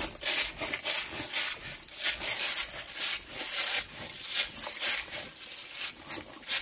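Footsteps crunching through a thick layer of dry fallen leaves on a forest trail, a dry rustling crunch at a steady walking pace of about two steps a second.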